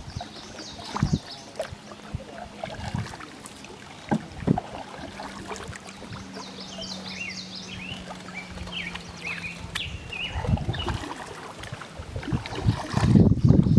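Canoe paddle dipping and pulling through river water in steady strokes, with songbirds chirping in quick runs of high notes from the bank. Near the end, wind buffets the microphone in heavy low rumbles.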